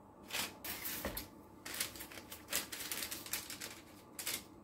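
Baking paper rustling and crinkling in short, irregular scrapes as a sheet of puff pastry is unrolled from it and pressed down by hand.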